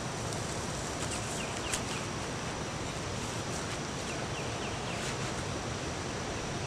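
Steady outdoor wind noise on the microphone, with faint high chirps now and then.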